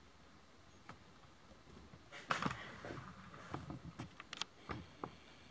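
A run of sharp clicks and light knocks, the loudest a short scraping clatter about two seconds in, followed by scattered ticks.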